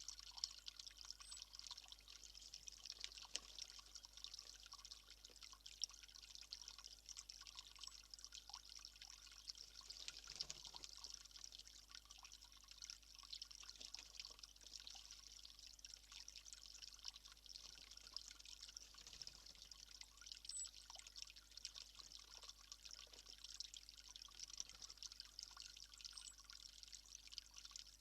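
Faint, steady trickle of running water, with a fine crackling hiss.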